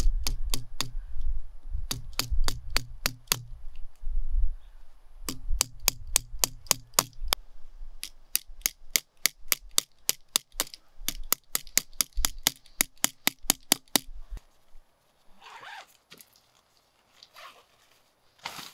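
Rapid, evenly spaced metal taps in bursts, about four or five a second, some with a dull thud under them: a Leatherman Signal multitool's hammer driving a tent stake into hard ground. The tapping stops about three-quarters of the way through, and soft rustling of tent fabric follows.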